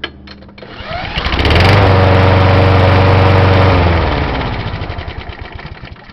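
Briggs & Stratton Quantum lawnmower engine revved once: it climbs to high speed about a second in, holds there for about two seconds, then slows back down toward idle with its firing pulses heard separately.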